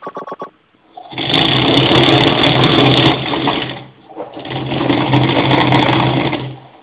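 A small electric motor on a home-built electronics rig buzzing and rattling, running in two stretches of about three seconds each with a short break between. A few quick clicks come just before it starts.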